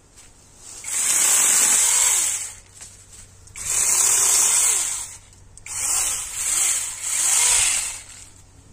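Battery-powered mini chainsaw run in five bursts, two longer and then three short ones; its electric motor whines up and back down with each trigger pull as the chain spins.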